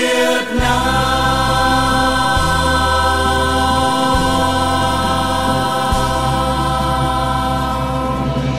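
Music: the closing bars of a choral song, long held chords over a bass line that moves to a new note every second or two.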